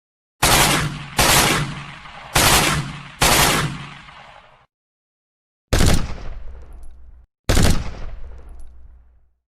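Gunshot sound effects: four single shots, each ringing out for about a second, then after a short pause two more shots with long, deep tails.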